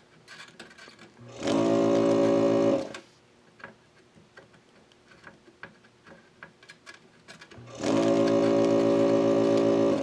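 Weller DS600 desoldering station's built-in vacuum pump buzzing in two short runs, sucking molten solder off the pads. The first run lasts about a second and a half; the second starts near the end and is still running at the close, with faint clicks in between.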